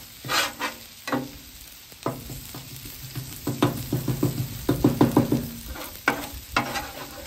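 Metal spatula scraping and clacking on a hot steel griddle top while garlic chili crisp sizzles in oil. The strokes come thickest between about three and a half and five and a half seconds in, each clack with a short ring.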